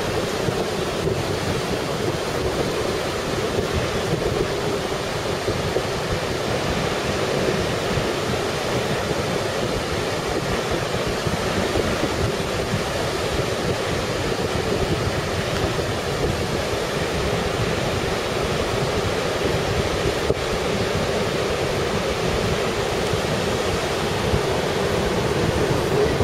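Steady rush of surf breaking and washing over a sandy beach in the shallows, with wind on the microphone.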